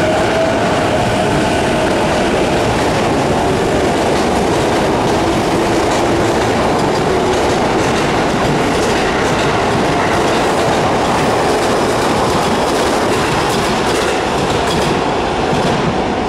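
Sotetsu 11000 series electric commuter train pulling out of the station and running past close by, a loud, steady rumble of wheels and motors. The level drops slightly near the end.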